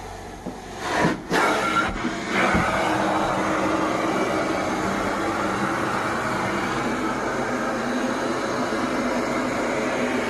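Carpet-cleaning vacuum suction running steadily, surging a few times before settling into a continuous rush about two and a half seconds in.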